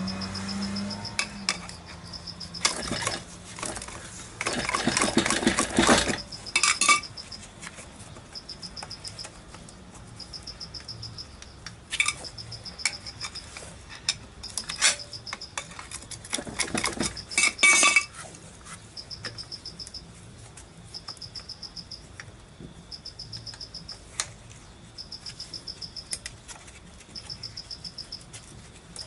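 Metal tools clinking and scraping on a scooter engine's casing as it is dismantled, with a hiss of aerosol spray for a few seconds from about three seconds in and again briefly later. An insect chirps in short, regularly repeating trills behind it.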